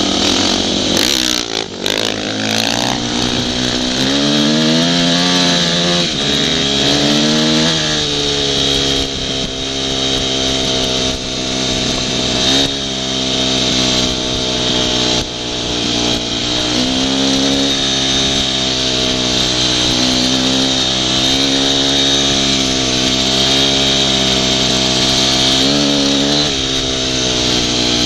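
Dirt bike engine under way, revving up and dropping back in pitch again and again as the rider accelerates and shifts gears, over steady road and wind noise. A few sharp knocks come about one to three seconds in.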